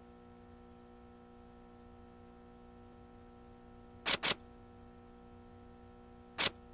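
Two quick sharp clicks about four seconds in and a single click near the end, over a steady low electrical hum.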